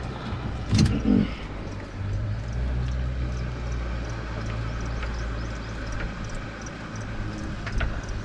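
Boat motor running with a steady low hum. A brief voice sounds about a second in, and a couple of light clicks come near the end.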